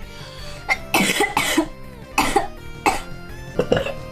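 A girl coughing repeatedly, a quick cluster of coughs followed by single coughs about every half second to a second, with music playing underneath.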